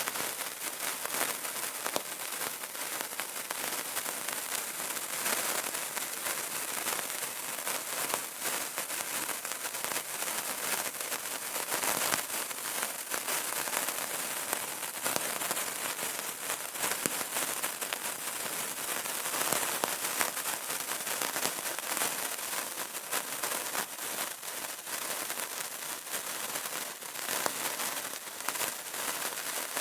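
Burning candle crackling: a continuous dense stream of small pops and ticks over a soft hiss.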